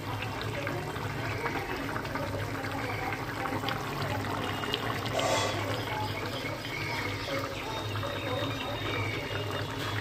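Thin fish curry with ridge gourd and potato boiling hard in an aluminium kadai: a steady mass of bubbling and small pops over a low steady hum, with one brief louder burst of bubbling about five seconds in.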